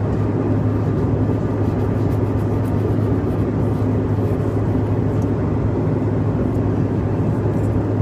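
Steady drone of an airliner cabin, with faint rustling of a paper napkin being rubbed between fingers.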